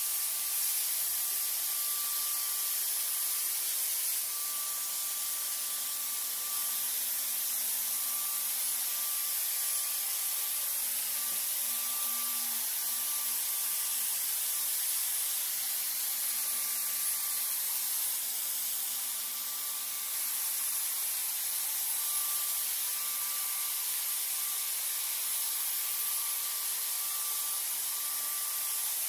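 Electrostatic disinfectant sprayer (nebulizer) running continuously, giving a steady hiss of fine mist with a faint, even whine from its motor underneath.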